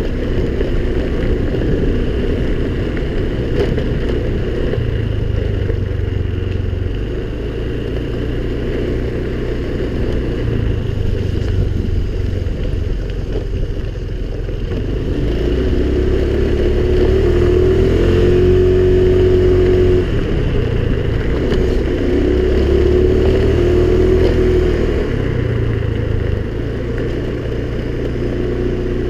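Honda scooter's small engine running under way over a steady low rumble. About halfway through, the engine note climbs and wavers as it speeds up, then settles back.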